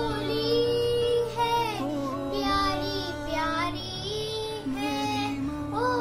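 A young girl singing a Hindi song, her voice holding and gliding between notes, over steady recorded backing music.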